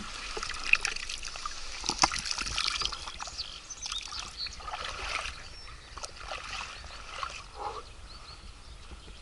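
Water sloshing and trickling in a bottle as someone drinks from it with the head tipped back, with small irregular clicks throughout.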